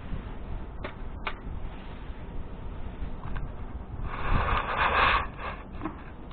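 Rustling and scraping from hands handling the wood stove and its kindling, with two light clicks about a second in and a louder rustle a little after the middle.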